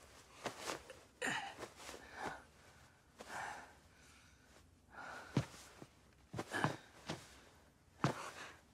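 Quiet breaths and rustling of cloth robes, with a few soft knocks in the second half: footsteps on a wooden floor as a man gets up and walks over.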